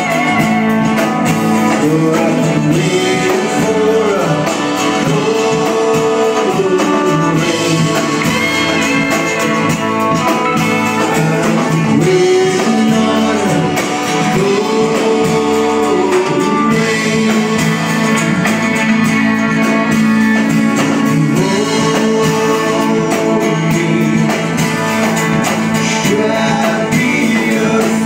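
Live band playing a song: strummed acoustic guitar, electric guitar, bowed cello and drums, with a man singing.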